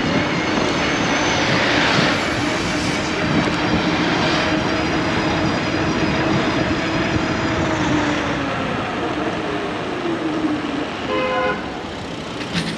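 E-bike riding at about 35 mph in city traffic: wind and road noise with a steady whine that sinks in pitch as the bike slows near the end. A short car horn toot sounds about eleven seconds in.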